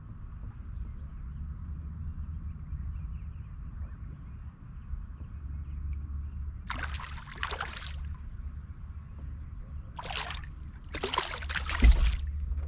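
Hooked bass splashing at the surface beside a kayak during the fight: three bursts of splashing, the first about two-thirds of the way in, then two close together near the end with a low thump. Under it runs a steady low rumble.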